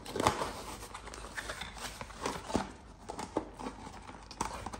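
A cardboard box being handled and its flap opened: a run of short scrapes, taps and rustles of card.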